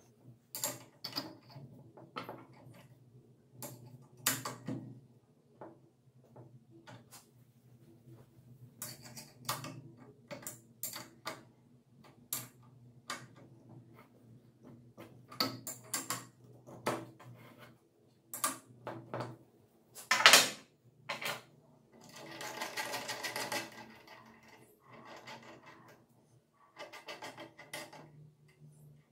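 Scattered clicks, clinks and knocks of metal bolts, nuts and hand tools as the clamp holding an angle grinder on a sliding grinder stand is tightened by hand. One louder knock comes about two-thirds of the way through, followed by a couple of seconds of scraping.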